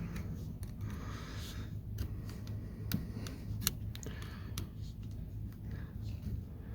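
Scattered small clicks and rustling of plastic wiring-harness connectors being worked loose from a multifunction (combination) switch, over a low steady hum.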